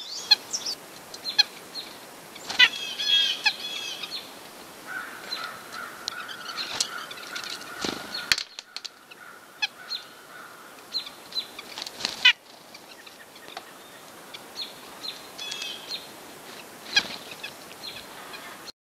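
White-breasted nuthatches giving short nasal calls, mixed with other birds chirping. A tight run of calls comes about three seconds in, and single calls are scattered through the rest.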